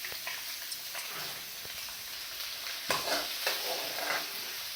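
Chopped onions sizzling in hot cooking oil in a pan while being stirred with a spoon, with a few sharp knocks and scrapes of the spoon against the pan about three seconds in.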